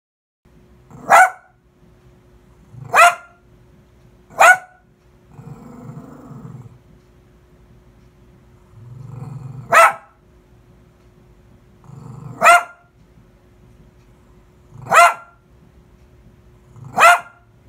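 A dog barking: seven single sharp barks, one to three seconds apart, with low growling between some of them.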